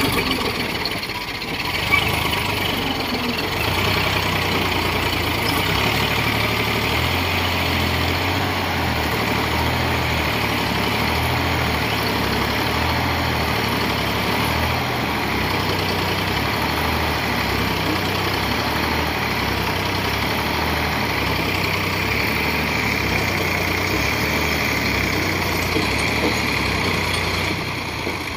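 Diesel farm tractor engine running steadily under load as it tows a loaded trailer through deep mud, with one sharp knock about two seconds in. The engine sound drops a little near the end.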